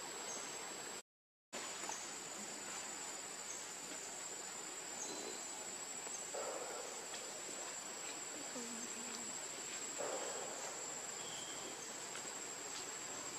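Steady high-pitched trilling of insects, one unbroken shrill tone over a soft hiss. It cuts out completely for about half a second about a second in.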